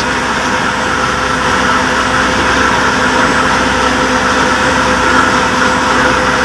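Solar-powered electric flour mill (chakki) running steadily while grinding wheat into flour: an even, loud machine hum with a constant whine over it.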